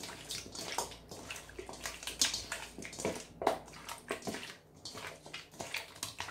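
Raw chicken wings being mixed by hand in a soy-sauce marinade in a stainless steel bowl, making irregular wet squelches and slaps as the meat is turned and squeezed.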